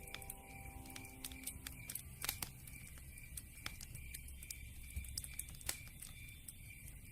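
Wood campfire crackling: irregular sharp pops and snaps over a low rumble, with two louder snaps, one a little over two seconds in and one near six seconds.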